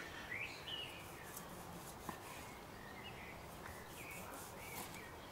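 Birds chirping and whistling in short, gliding phrases over a quiet background, with a faint click about two seconds in.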